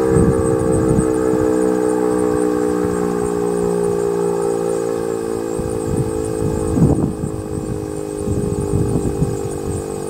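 Federal Model 5 mechanical outdoor warning siren winding down after its test alert, its tone slowly falling in pitch and fading. Low rumbling gusts of wind hit the microphone a few times, strongest about seven seconds in.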